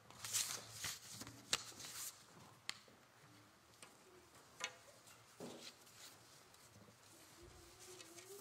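Faint footsteps and rustling of people moving about, with a cluster of sharp clicks and knocks in the first two seconds and a few more scattered later.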